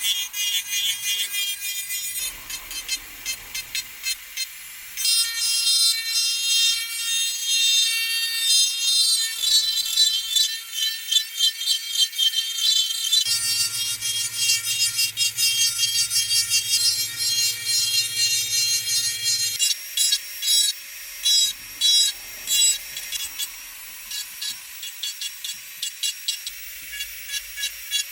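Sanding of a Glock 17 pistol's polymer grip, with repeated scraping, rasping strokes.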